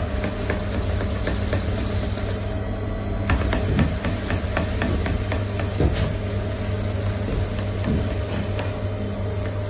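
Electric potter's wheel running with a steady hum while a lump of wet clay is pressed and centred by hand on the spinning wheel head. Quick small wet clicks and slaps from the hands on the clay come thickly in the middle.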